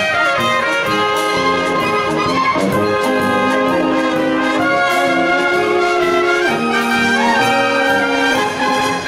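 Slovak brass band (dychovka) playing live, with trumpets prominent over tenor and baritone horns, clarinet and drums, at a steady full volume.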